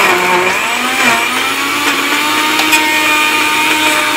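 Countertop blender motor running at full speed, churning hard frozen banana with milk. Its pitch climbs over the first second as it spins up, then holds steady.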